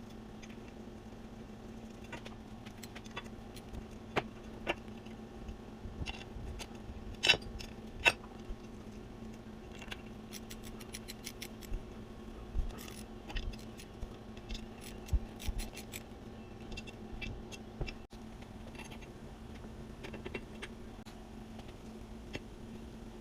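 Scattered light clicks and clinks, as of small metal parts or tools being handled, over a steady low hum.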